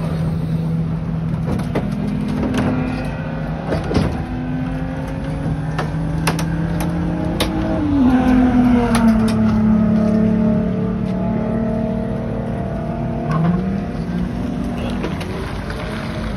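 Pit-lane race car sound: steady motor tones that drop in pitch about halfway through, with scattered sharp clicks and knocks as the crew latches the car's bodywork down. Near the end a rising whine starts as the electric race car pulls away.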